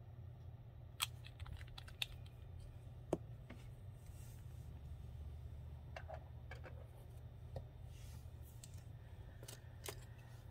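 Faint scattered clicks and light taps of gel polish bottles and their screw caps being handled, capped and set down on a tabletop, over a low steady hum.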